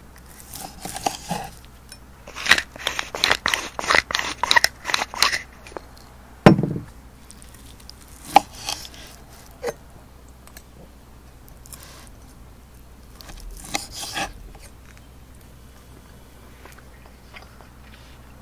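Steak knife sawing through a seared steak's crust on a wooden board: a quick run of about a dozen crunchy rasping strokes, then a single dull knock. A few clicks and a second short bout of cutting follow.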